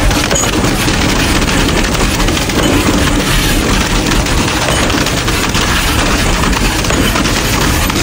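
Concrete pump running while wet concrete gushes from its hose into a footing, a loud dense clatter over a steady engine hum.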